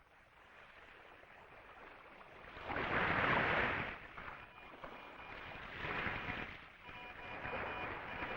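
Radio receiver static: a rushing hiss that swells and fades, loudest a few seconds in, with faint steady whistling tones coming through near the end, as if a weak signal is buried in the noise.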